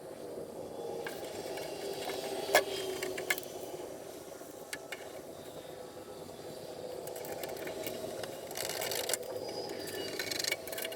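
Workshop handling noises: one sharp knock about two and a half seconds in, a few lighter clicks, and bursts of scraping and rattling near the end.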